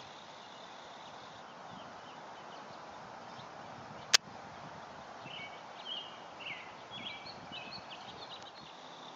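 Outdoor background with one sharp click about four seconds in, then a quick run of short, high chirps from a small songbird for about three seconds.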